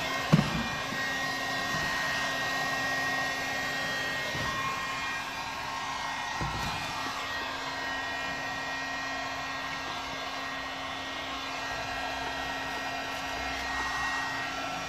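Electric heat gun blowing steadily with a constant fan hum, heating stretched vinyl wrap film so it shrinks back to its original shape before trimming. A sharp knock comes just after the start.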